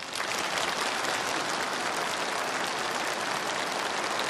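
Large crowd applauding: dense, steady clapping that breaks out suddenly and holds at an even level.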